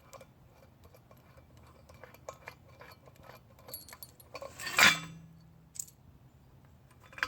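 Scattered metal clicks and clinks as the large bolt and steel parts of a tractor sleeve hitch are handled. About five seconds in comes one loud metallic clank that rings briefly.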